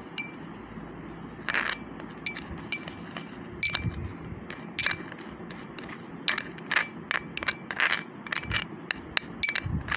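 Metal spoon stirring honey and baking soda in a glass bowl, scraping and clinking against the glass in irregular strokes; the sharper knocks leave the bowl ringing briefly.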